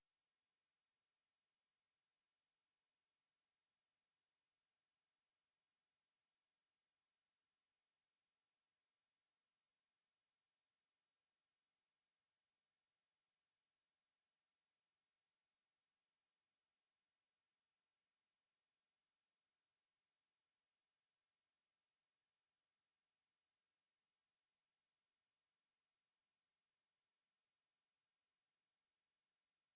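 A steady, high-pitched pure sine-wave test tone at 7606 Hz, held at a constant level without change.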